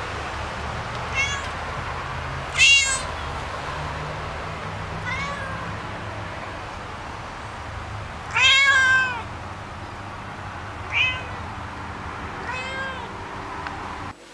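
A cat meowing repeatedly, about six meows. The loudest come about 3 s and 8 s in, and the one at 8 s is long and drawn out.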